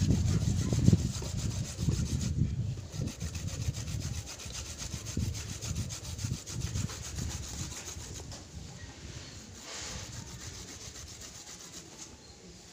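Fresh turmeric root being grated by hand on a flat metal grater: a run of rasping scraping strokes that grow gradually quieter toward the end.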